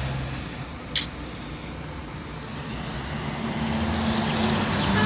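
Car engine and road noise heard from inside the cabin while driving slowly, with one short sharp click about a second in. The engine hum grows louder over the last couple of seconds as the car picks up speed.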